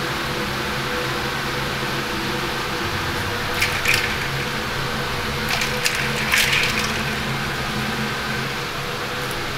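Steady ventilation-fan hum, with a few short clicks and clatters about four seconds in and again around six seconds in.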